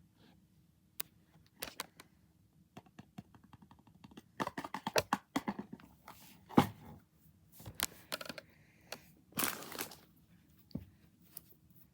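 Toy blind-box packaging being handled and torn open: crinkling and tearing, with scattered clicks. A dense run of crackling comes near the middle, then one sharp loud snap and a longer rustle later on.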